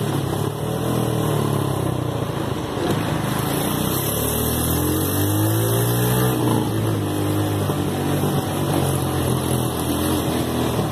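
Mini buggy engine running under way, its revs climbing and falling back several times, with a sharp drop in revs about six seconds in.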